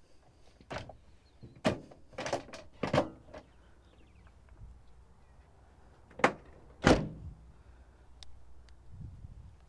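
Side doors of a 1985 Dodge B150 van being worked by hand. Several clunks of the latch and door come first, then the two doors shut with two loud thuds less than a second apart.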